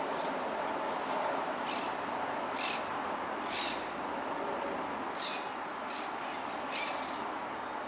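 A handful of short bird calls, a second or so apart, over the steady hum of city traffic.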